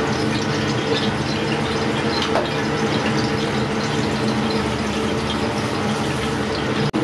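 Butter sizzling and crackling faintly in a pan of hot oil on a gas burner, over a steady rush with a low hum from the kitchen around it.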